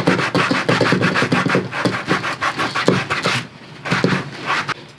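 Fine-grit sandpaper rubbed in quick back-and-forth strokes over a leather handbag's surface, sanding out deep scratches and gouges. The strokes run fast and dense, break off briefly about three and a half seconds in, and come back for a few more strokes before stopping near the end.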